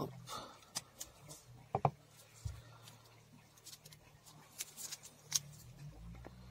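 Door check strap repair: scattered small clicks and scrapes as a repair-kit bushing is forced onto the strap's metal arm with pliers, a tight fit, with a sharp double click a little under two seconds in and a dull knock just after.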